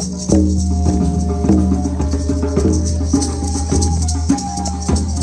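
Live drum-circle music: drums and shakers keeping a steady rhythm with guitar, over sustained low notes.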